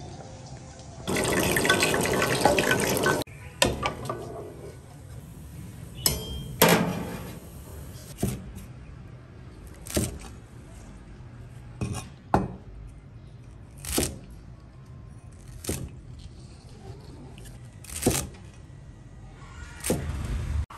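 Kitchen sounds: a short run of water about a second in, lasting about two seconds, then a string of sharp knocks and clinks roughly every two seconds.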